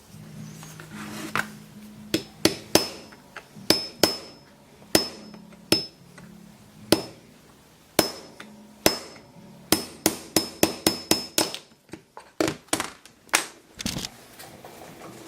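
Hammer tapping a metal punch to drive the spring pin out of a clamp: a long run of sharp metal-on-metal strikes, many with a brief ring, that come quicker near the middle. Faint background music underneath.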